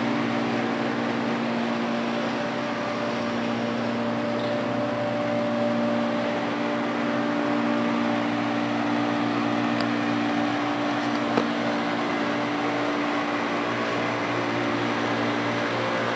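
Steady mechanical hum carrying a few constant tones, with a single brief click about eleven seconds in.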